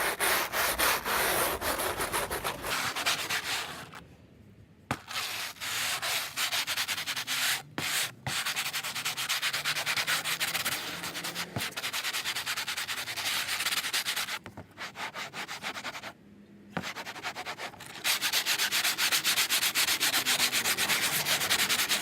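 Fast back-and-forth hand scrubbing of old crumbling headliner foam and glue off a car headliner backing board, a hissing rasp of several strokes a second. It comes in runs with brief pauses, and is strongest near the end.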